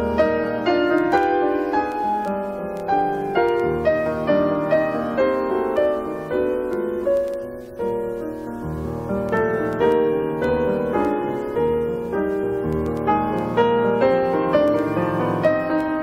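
Classical music led by piano: a flowing line of struck notes, each ringing and fading, with a short lull a little before halfway.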